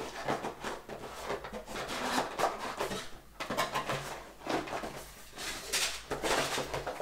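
Product packaging being handled by hand: irregular rustling, scraping and light knocks from the box and its inner packing, with louder bursts about midway and near the end.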